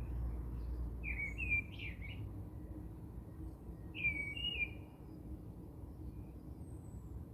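A bird singing: two short warbling phrases, one about a second in and one about four seconds in, with faint high chirps between them over a low background rumble.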